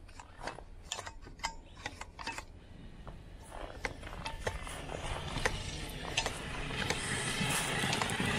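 Traxxas X-Maxx 8S RC monster truck driving through snow on paddle tires, its brushless electric motor and drivetrain whirring and growing steadily louder from about halfway through. Faint scattered clicks are heard in the first few seconds.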